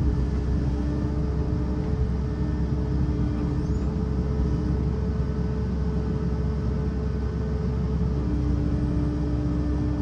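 Excavator engine running steadily with the hydraulics working, heard from inside the cab, as the arm and thumb drag a log. A steady drone carries a constant whine that fades out for a few seconds in the middle and comes back near the end.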